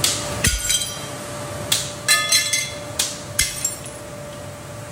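Glass clinking and tinkling: a run of sharp, ringing strikes in small clusters, over a faint steady tone.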